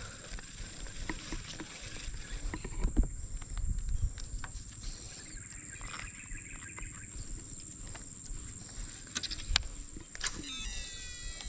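Insects droning steadily at a high pitch, over a low rumble, with a few sharp clicks near the end.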